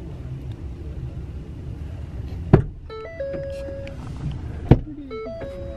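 Low, steady rumble of a running vehicle engine. Two sharp clicks come about two seconds apart, each followed by a brief run of stepped electronic tones.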